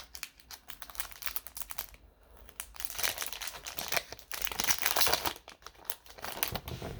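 Hockey card pack wrapper crinkling as it is handled, a run of quick crackles that grows louder in the middle.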